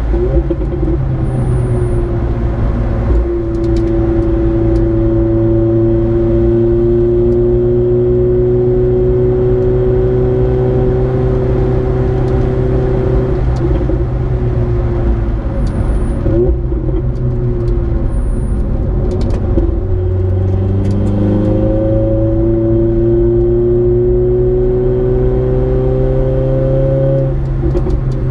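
Mercedes-AMG A 45's turbocharged four-cylinder engine pulling hard at high speed, heard from inside the cabin, its pitch climbing slowly. About 13 seconds in it comes off throttle and drops through the gears with short rev blips. From about 20 seconds in it pulls again with rising pitch, then lifts off near the end.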